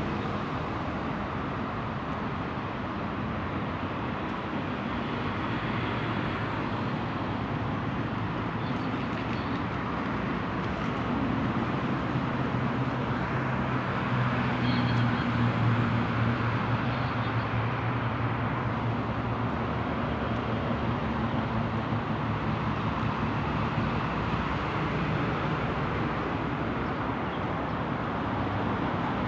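Steady outdoor traffic and engine noise with a low engine hum, which grows louder about halfway through.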